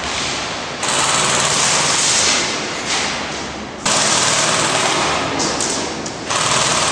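Airsoft guns firing long full-auto bursts, each lasting a few seconds, with fresh bursts starting about a second in, near four seconds and just after six seconds.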